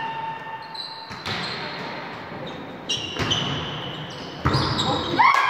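Volleyball rally: five sharp hits of the ball ringing in the big hall's echo, with short squeaks of shoes on the court floor between them. Shouts begin right at the end as the rally ends.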